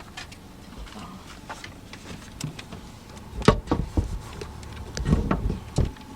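A few knocks and clatters of objects being handled, the loudest about three and a half seconds in and several more near the end, over a low background hum.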